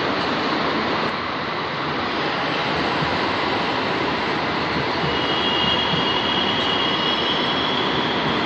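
Passenger train rolling slowly along the platform track, a steady running noise of wheels on rail, joined about five seconds in by a thin, high, steady squeal.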